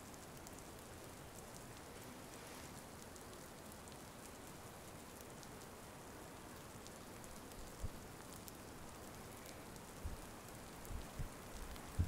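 Light rain falling steadily, a soft even patter with scattered ticks of single drops. A few soft low thumps come in the last few seconds.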